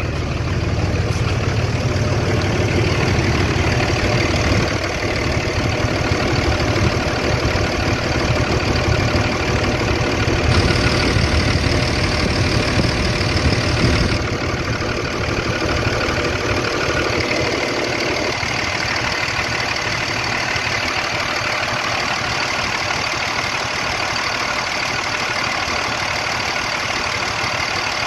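Pickup truck's turbo-diesel engine idling steadily with diesel clatter, just after its first start on fresh oil treated with a friction-reducing additive.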